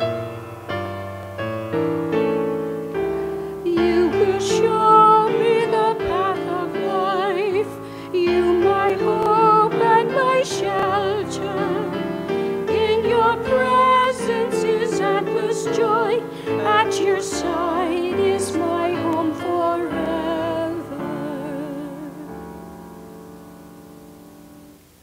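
Church piano accompaniment with a woman singing over it in a sustained voice with vibrato from about four seconds in. The music dies away over the last few seconds.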